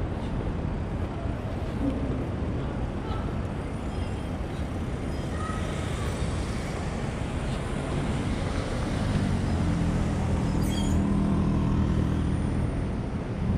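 City street traffic noise. From about nine seconds in, a vehicle's engine runs close by with a steady low hum.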